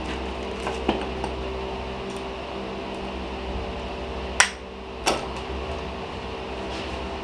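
Small metal gearbox parts clinking as they are handled at the bench. There are a few light clicks in the first second or so, then two sharp clicks under a second apart near the middle, over a steady mechanical hum.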